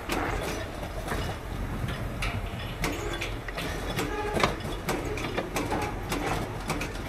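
Dump truck's diesel engine running with a low steady drone, under frequent irregular rattles and clunks, as of a loaded or empty truck body and cab jolting over rough ground.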